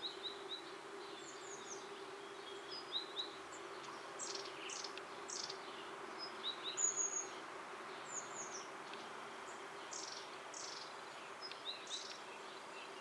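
Small birds chirping and twittering in short, quick falling notes, in scattered groups with the loudest cluster about halfway through, over a steady faint hum and hiss.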